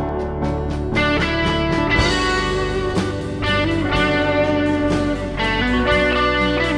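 Music: a home-recorded song led by guitar, with a steady beat.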